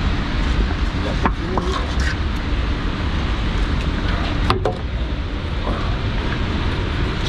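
Steady low rumble of an idling dump truck, with a few short clicks and knocks as the rubber tarp straps are pulled down and hooked.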